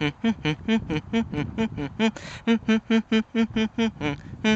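Background music: a quick keyboard or synthesizer tune of short, evenly spaced notes, about four or five a second.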